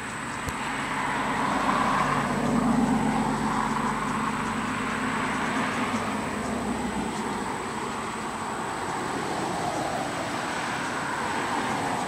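A motor vehicle going by, its engine and tyre noise swelling to a peak about two to three seconds in, then running on as a steady lower rumble.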